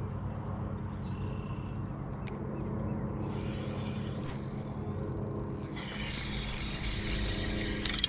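A boat motor running with a steady low hum, joined by a higher hiss that builds through the second half, with a sharp click near the end.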